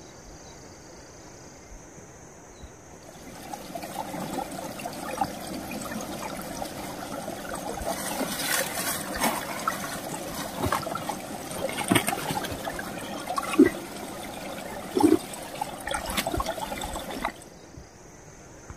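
Water trickling and splashing over wet rocks and leaves, with scattered drips and sharper splashes; it comes in suddenly about three seconds in and cuts off suddenly near the end. Before and after it there is only a faint, steady high-pitched background.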